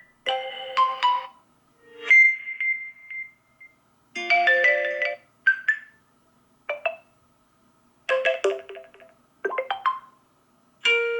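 Vivo Y52 5G smartphone notification tones played one after another: a string of about eight short electronic chimes and jingles, each lasting about a second, separated by brief silences.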